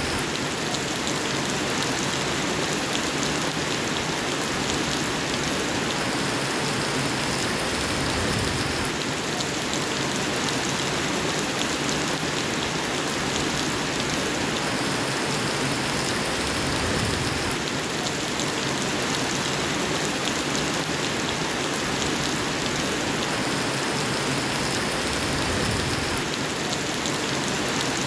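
Steady heavy rain falling on a surface, a continuous even hiss. A low rumble comes in and drops out every few seconds.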